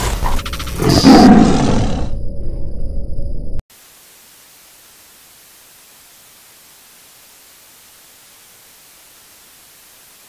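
Logo sting: a loud big-cat roar sound effect over crackling glitch noise, cutting off suddenly after about three and a half seconds, then a faint steady hiss of TV static.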